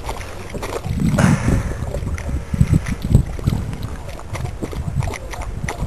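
Wind buffeting the microphone in gusts, with a run of short, sharp clicks in the second half.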